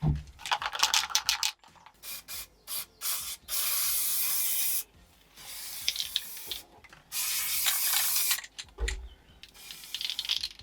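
Aerosol can of black anti-rust paint spraying in two steady hisses of about a second and a half each, with a fainter hiss between them. Short rattling clicks come before the first hiss.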